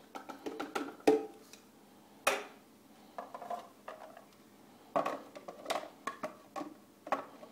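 Spoon knocking and scraping as canned tomatoes are emptied into a plastic food processor bowl, with a few sharp knocks in the first couple of seconds. Later comes a cluster of plastic clicks and clatters as the processor's clear lid is set on and fitted.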